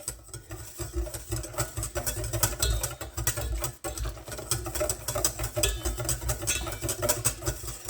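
Wire whisk beating egg yolks in a bowl while hot cream is tempered in: rapid clicking strokes over a low steady hum.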